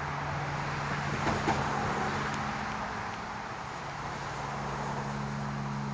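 Cessna 310R twin-engine piston airplane flying overhead, a steady engine and propeller drone with a low hum.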